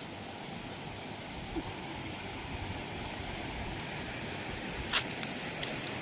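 Steady rush of water from a waterfall, with a single sharp click about five seconds in.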